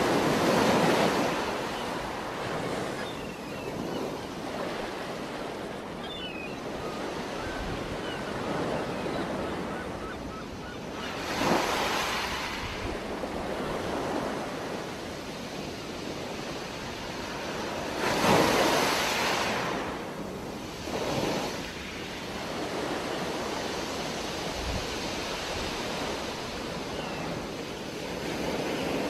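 Underwater water noise heard through an action camera's housing: a steady rushing hiss that swells louder several times, with a few faint ticks.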